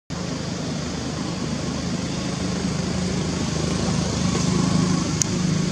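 A motor engine running steadily nearby, a low drone over outdoor background noise that grows slightly louder in the second half, with a brief high chirp near the end.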